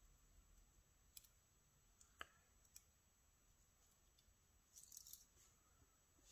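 Faint small metallic clicks and scrapes of steel tweezers working a spring out of a pin chamber in a lock cylinder housing: a few single clicks, then a short cluster near the end.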